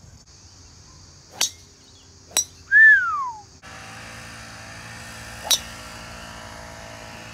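Golf clubs striking balls on a driving range: two crisp clicks, then a third about five and a half seconds in. A steady insect hum runs behind the first clicks. About three seconds in, the loudest sound is a single whistle sliding down in pitch.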